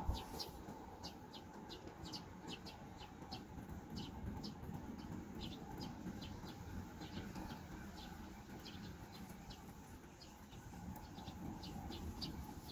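Small birds chirping, with short high chirps coming a few times a second. Under them is a low rumble of wind on the microphone.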